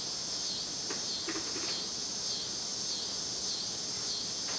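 Steady chorus of insects, a high shrill sound swelling and fading roughly once a second.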